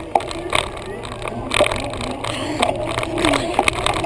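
Bicycle being ridden with a camera on its mount: irregular knocks and rattles from bumps, a few a second, over a steady low rumble.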